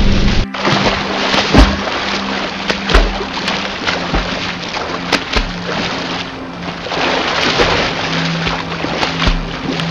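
Rain cuts off abruptly about half a second in, giving way to water sloshing and splashing over music with low held notes. About half a dozen sharp knocks with a low thump sound through it.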